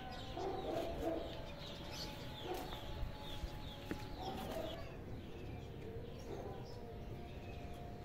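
Birds calling in the background, many short quick chirps through the whole stretch, with a few lower calls near the start, over a faint steady hum.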